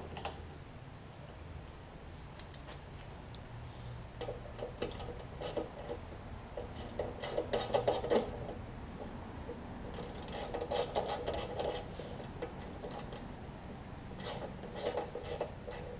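Ratchet wrench clicking in several short runs of quick ticks as a bolt is run in and tightened.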